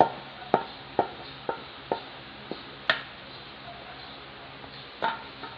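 A kitchen utensil knocking against cookware, as when emptying coconut cream into a pan: sharp, slightly ringing knocks about twice a second for three seconds, and one more near the end.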